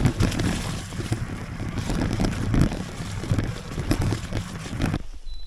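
Mountain bike riding up a dirt trail, heard from a handlebar-mounted camera: tyre noise and rattling knocks from the bike, with wind buffeting the microphone. About five seconds in it cuts off suddenly to a much quieter sound.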